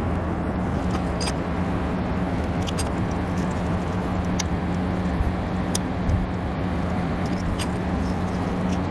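A steady low mechanical hum from running shop equipment, with a few faint clicks of hands working a vinyl seat cover over a metal seat frame.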